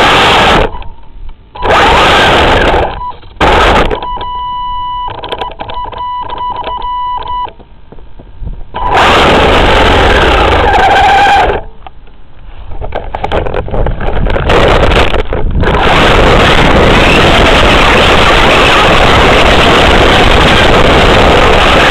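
Electric RC car heard from its own chassis while driving: loud, coarse drivetrain noise from the motor, gears and tyres. The noise breaks off several times as the car stalls and bumps through long grass. In a quieter stretch a few seconds in, a steady high tone with rapid clicking sounds.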